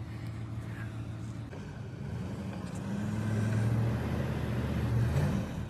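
Ram pickup truck engine running under load, revving up about halfway through and held at higher revs, as it strains on a tow strap to pull a stuck truck out of a snowy ditch.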